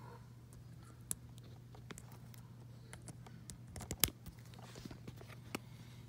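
Hands handling cables and a plastic wire connector: scattered small clicks and knocks, with a cluster of sharper knocks about four seconds in, over a steady low hum.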